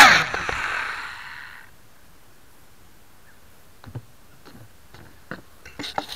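Hubsan X4 micro quadcopter's small motors and propellers spinning down as it settles on touchdown: the whine drops in pitch and fades away over about a second and a half. A few faint clicks follow near the end.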